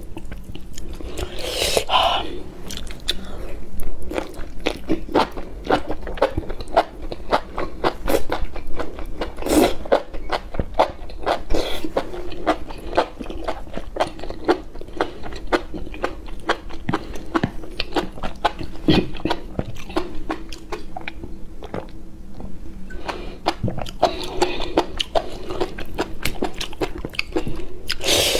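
Close-miked eating of enoki mushrooms in chili sauce: quick, wet chewing and biting clicks that run on without a break, with a few louder bursts near the start, about ten seconds in and near the end.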